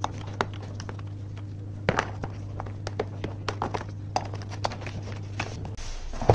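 Irregular clicks and clunks of hand tools and engine-bay parts being worked loose on a car, over a steady low hum that stops shortly before a louder knock at the end.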